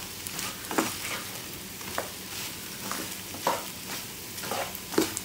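Chicken sizzling as it dry-fries in a nonstick frying pan, its water cooked off, with a wooden spatula scraping and turning it four times, about every second and a half.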